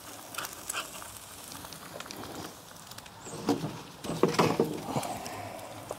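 Eggs sizzling in a square cast-iron skillet on a kettle grill, with a metal spatula scraping and clicking against the pan, loudest around four to five seconds in.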